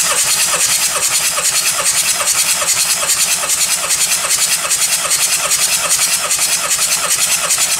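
A VW Transporter T5's 1.9-litre AXB turbodiesel turned over on its starter motor without firing, a steady rhythmic cranking of about four pulses a second. This is the cranking for a compression test of the third cylinder, which builds to 31 kg/cm².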